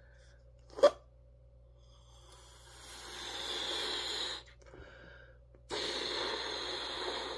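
A person blowing up a latex balloon by mouth: two long breaths of air pushed into the balloon, the first swelling over about two seconds, the second starting suddenly about six seconds in. A brief sharp click comes about a second in.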